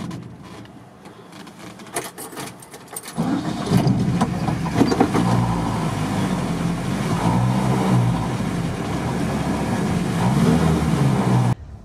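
Volkswagen T3 Transporter's engine heard from inside the cab. At first it is quiet, with light rattles and clicks. From about three seconds in it runs loudly, its pitch rising and falling as the throttle is worked.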